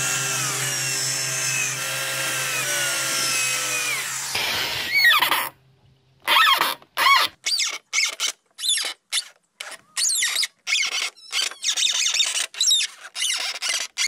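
Cordless drill driving wood screws into timber: a steady motor whine with high squeals from the screw turning in the wood. From about five seconds in it comes as a quick run of short bursts with brief stops between them.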